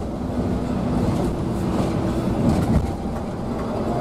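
Steady rumble of road and engine noise inside the cabin of a Scania K360iB coach cruising on a toll road, with a few light clicks.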